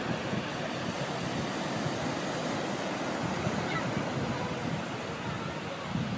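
Sea surf washing steadily onto the beach, a continuous rush of waves.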